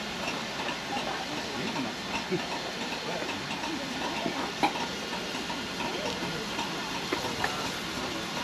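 Steam locomotive of the Jacobite train hissing steadily, a continuous rush of escaping steam, with faint voices in the background.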